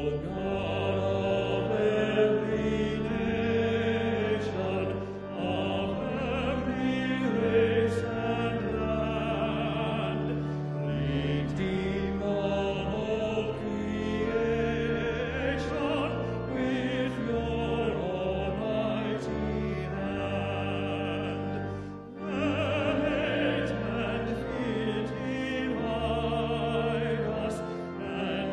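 A hymn sung with vibrato to organ accompaniment, the organ holding sustained low bass notes, with short breaks between verses or phrases about 5 and 22 seconds in.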